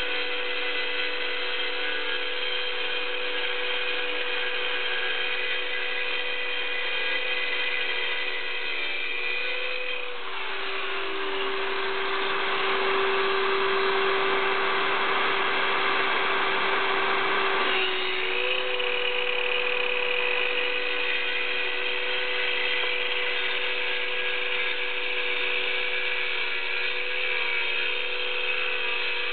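Circular saw with a diamond masonry blade running with a steady whine, scoring a shallow freehand cut in concrete. About a third of the way in, the whine drops in pitch and a gritty grinding grows as the blade bites into the concrete under load. About eight seconds later the whine climbs back up.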